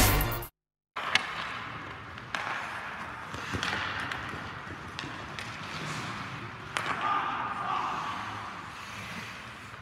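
Title music cuts off in the first half-second. Then comes the echoing ambience of an indoor ice rink, with skates on the ice and several sharp cracks of hockey sticks hitting pucks, a second or more apart.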